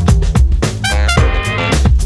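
Background music: an upbeat swing-jazz track with a steady bass and drum beat and brass-like melody lines.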